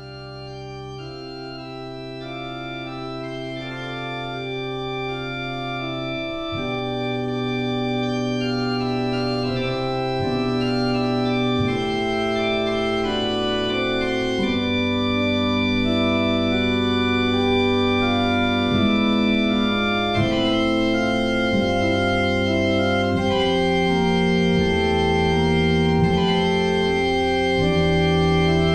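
Organ played with both hands and the pedalboard: slow, held chords that change every second or two over sustained pedal bass notes, growing louder over the first several seconds.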